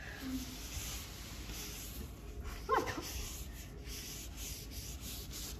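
Repeated rubbing strokes of a napkin wiping spilled whipped cream off a wood-look floor.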